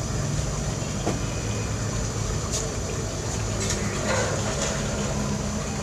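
Steady low rumble of a lit gas stove burner under an aluminium pot of heating oil, with a few light clinks of a ladle against the pot.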